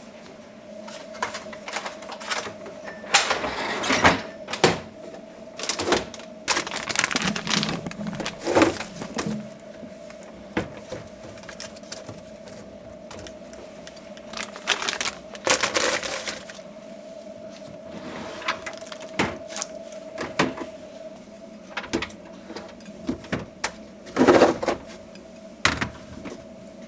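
Plastic food storage containers and kitchen items being handled: scattered clicks, knocks and rustling, over a steady hum.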